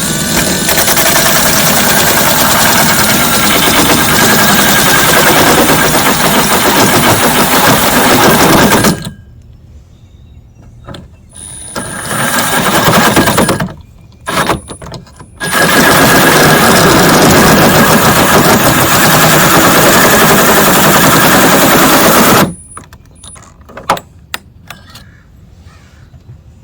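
Drill turning a 2.5-inch hole saw through the Honda Insight's aluminium hood, a loud chattering grind. It runs about nine seconds, stops, comes back in a few short bursts, runs about seven seconds more, then stops for good, leaving a few light clicks.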